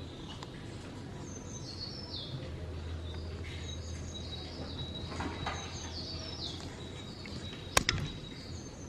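Small birds chirping: short, high, falling chirps that repeat every second or so, with one sharp click near the end.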